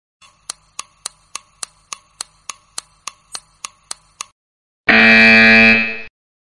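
Countdown-timer sound effect ticking evenly, about three to four ticks a second. When the ticking stops, a loud pitched electronic sound effect lasting just over a second plays as the answer is revealed.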